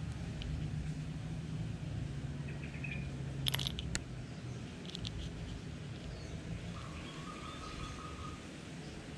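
A few small, sharp clicks of spinning-reel parts being handled during disassembly, about halfway through. Under them runs a steady low hum, with a faint high chirp and a thin held whistle near the end.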